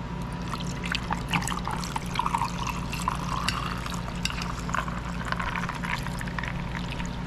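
Orange juice being poured into a glass, with irregular splashing that is busiest for the first few seconds and thins out after about five seconds.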